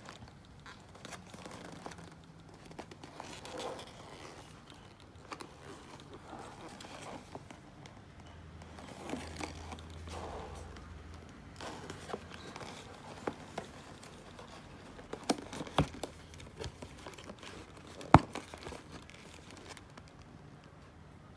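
A paperboard takeaway box being handled, turned over and opened by hand: rubbing and crinkling of card and paper, with scattered sharp taps and knocks, the loudest about 18 seconds in.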